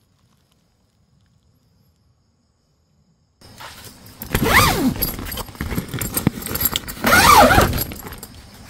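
Near silence, then from about three and a half seconds in, close rustling of tent fabric as the tent is opened, with two loud calls sliding down in pitch about three seconds apart: the 'ang! ang!' noise around the tent that the camper takes for an insect.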